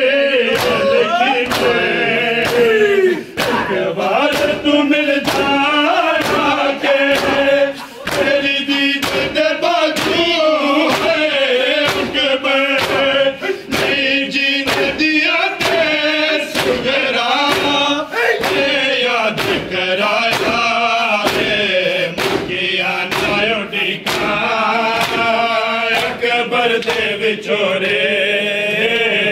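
Men chanting a Punjabi noha together, with a steady beat of thumps from hands striking bare chests in matam.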